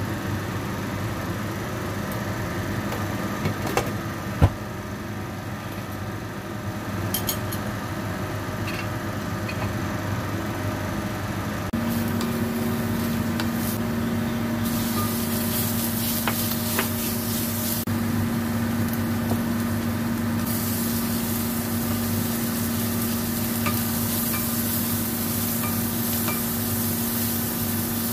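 Chopped garlic, then corn and minced pork, sizzling in oil in a stainless steel frying pan while being stirred with a wooden spatula, over a steady low hum. The sizzling comes in strongly about halfway through.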